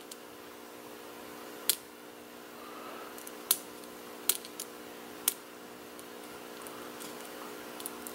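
Small, sharp metallic clicks of a steel hook pick working the pin stack of a Marks high-security cylinder lock under tension, about five clicks at uneven intervals, over a faint steady hum.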